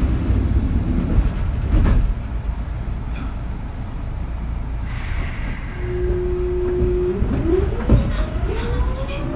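Motor hum of a Kintetsu 3200 series train's Mitsubishi early GTO VVVF inverter. A low rumble with a few clicks comes first. About six seconds in a steady hum starts, then breaks into several rising whines as the train accelerates from a standstill.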